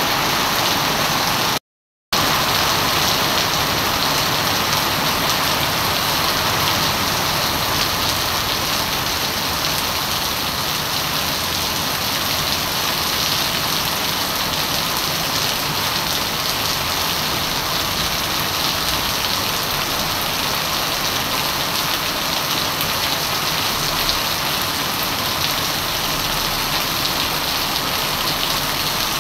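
Heavy rain pouring steadily onto a wet paved street and puddles, with a split-second dropout to silence about two seconds in.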